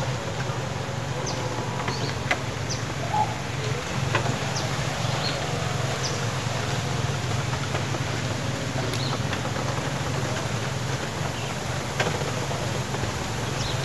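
Steady outdoor background noise with a low hum, and scattered faint short high ticks.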